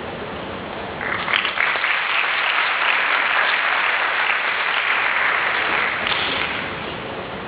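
Audience applauding after a choir's song, starting about a second in and dying away near the end.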